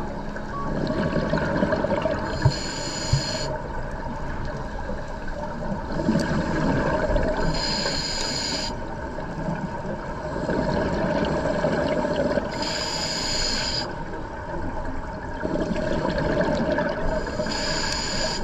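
Scuba diver breathing through a regulator underwater: a short hiss on each inhale, four times about five seconds apart, with longer stretches of bubbling from the exhaled air between them.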